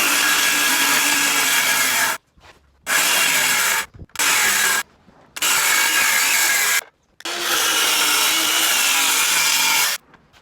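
A power tool worked on a wooden countertop, run in four spells that start and stop abruptly: two longer runs at the start and end, two short ones between.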